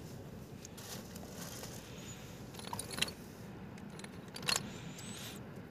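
A cast net being handled and pulled over river-bank pebbles: light clinks and rattles as its weights and the stones knock together, with a couple of sharper clicks. Under it is a steady low rush of background noise.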